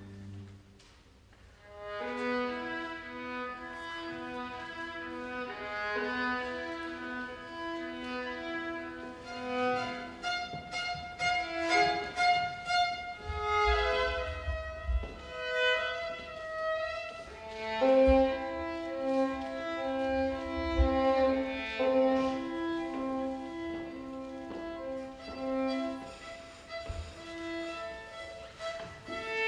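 Chamber string orchestra playing, the violins carrying the melodic lines. The strings come in about two seconds in after a brief near-quiet pause, and a few low thuds sound in the middle and later part.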